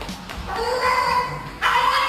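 A dog making long, drawn-out whining or howling calls over background music, one held call then a second starting near the end.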